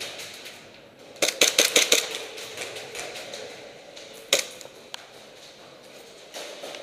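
Airsoft guns firing. A rapid burst of about eight sharp shots comes about a second in, then a single loud shot past four seconds, with scattered fainter shots around it.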